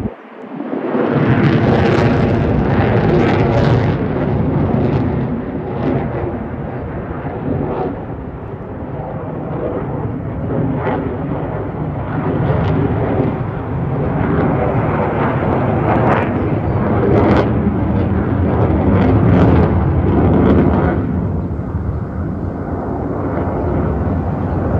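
Sukhoi fighter jets flying an aerobatic display overhead. Their engines make a loud, continuous jet rumble with crackling. It swells about a second in and grows duller near the end as the jets draw away.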